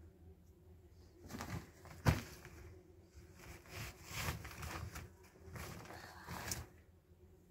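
Plastic packaging bag crinkling and rustling as it is picked up and handled, in several stretches, with one sharp click about two seconds in.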